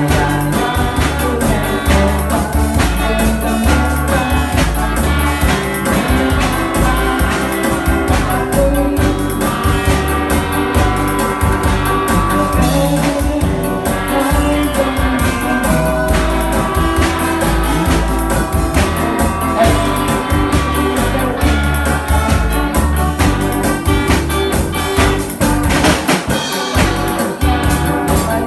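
A small live rock band playing: an electric guitar, an electric bass and a drum kit together, with the drums keeping a steady beat.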